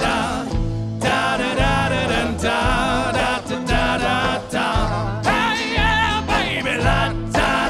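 Folk band playing a song live: a voice singing a wavering melody over a steady bass line and accompaniment.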